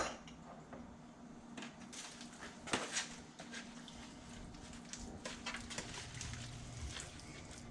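Faint, scattered kitchen handling sounds: hands rubbing pesto into a whole snapper, with small taps and clicks, a sharp click at the start and a knock a little under three seconds in.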